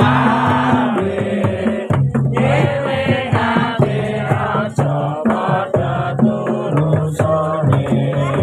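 Chant-like singing of a Javanese song over instrumental accompaniment, with held low notes that step in pitch every second or so under the sung melody.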